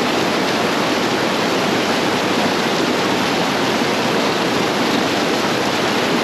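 Small creek's water rushing, a loud, steady, even rush with no changes.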